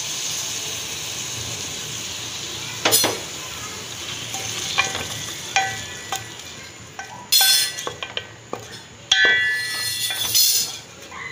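Liver frying in oil in a metal pot sizzles as a wet blended green masala paste is added, then a spoon scrapes and clinks against the pot while stirring it in. There is a sharp knock about three seconds in, followed by repeated scraping and short ringing clinks.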